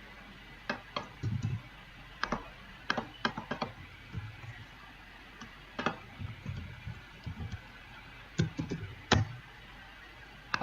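Computer keyboard being typed on in short irregular bursts, with scattered separate key or button clicks.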